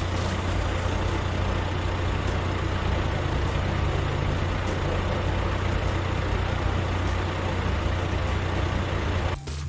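Tow truck's heavy engine running steadily with a constant low hum and a noisy rumble, cutting off abruptly just before the end.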